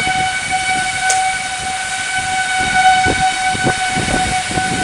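Tornado winds of about 80 mph gusting in uneven surges, with a steady high tone held underneath throughout.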